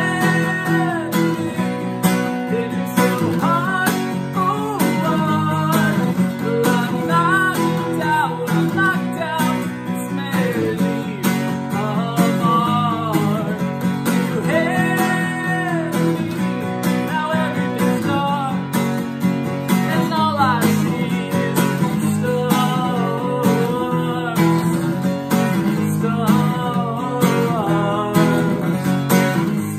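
A man singing while strumming an acoustic guitar, a solo voice-and-guitar performance.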